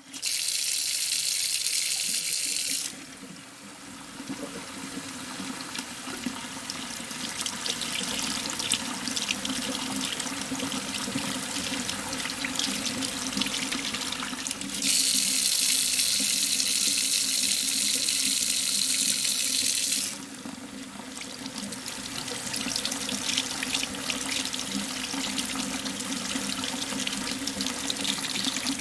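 Water running into a surgical tray. A loud, even stream at the start and again about halfway through, each lasting a few seconds, with a lighter, splashier flow and spattering between and after them.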